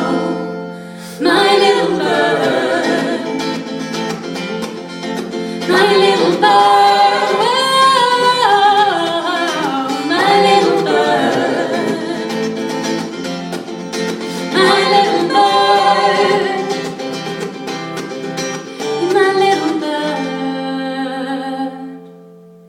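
Live singing with guitar accompaniment: the wordless closing bars of the song, with held, bending sung notes over sustained chords, dying away near the end.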